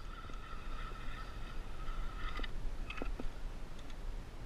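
Fishing reel whining steadily on a bent rod as a hooked kingfish is fought, stopping abruptly about two and a half seconds in. A few light knocks follow, over low wind and water noise.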